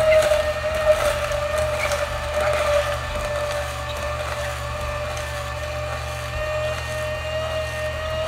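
Mecity masticating slow juicer running with a steady, pretty quiet motor whine while its auger crushes celery stalks pushed down the chute, with crackling crunches of the celery in the first few seconds.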